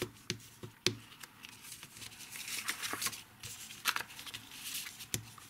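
Designer paper being folded over and creased with a bone folder: soft rustling and scraping of the paper, with several sharp clicks and taps as the tool and paper meet the mat.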